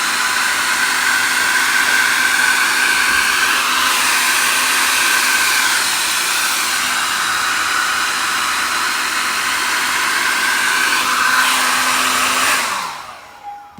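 Mi Ionic H300 hair dryer blowing steadily, a loud airy rush with a faint hum. Near the end it is switched off and the motor winds down with a falling pitch.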